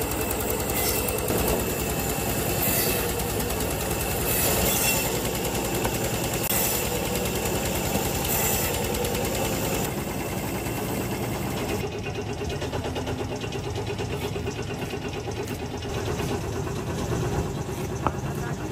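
Large band saw running steadily as logs are cut into short rounds, the cutting surging briefly about every two seconds in the first half. A single sharp knock near the end, an axe biting into a log round.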